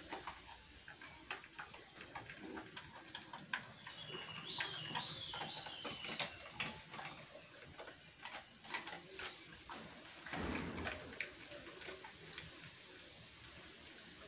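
Rottweiler chewing and crunching mutton bones: an uneven run of sharp cracks and clicks. A bird chirps several times about five seconds in, and there is a short rush of noise about ten seconds in.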